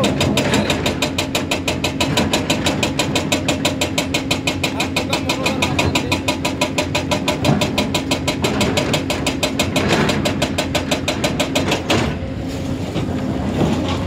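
Heavy diesel engines of a crawler excavator and a dump truck running, with a fast, even knocking clatter of about five beats a second. The clatter stops abruptly about twelve seconds in, leaving a steadier engine hum.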